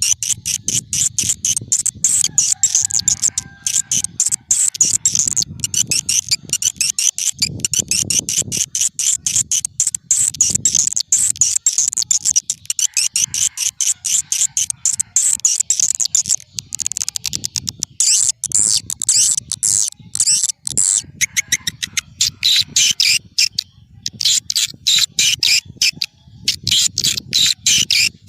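Recorded swiftlet lure call: rapid trains of high, chittering chirps from edible-nest swiftlets, repeated in runs with short gaps, over a low rumble.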